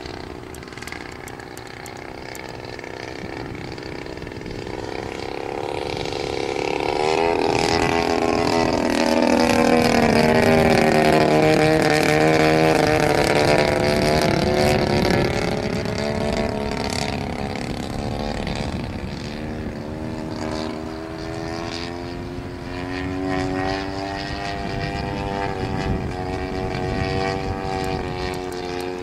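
Quarter-scale radio-controlled P-51 Mustang model's engine and propeller running as it flies past. It grows louder to a peak about ten seconds in, with the pitch falling as it passes, then fades somewhat, and the pitch climbs again later on.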